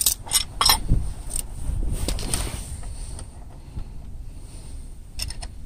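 Steel wrenches clinking against a gear puller on a motorized-bike engine's crankshaft as they are fitted on. There are a handful of sharp metallic clicks, most in the first two and a half seconds and a quick pair near the end, over a low rumble.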